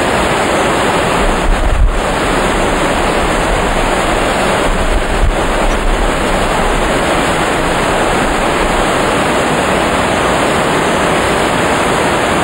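Waterfall pouring into a plunge pool: loud, steady rushing water, with a couple of brief low bumps about a second and a half in and again around five seconds.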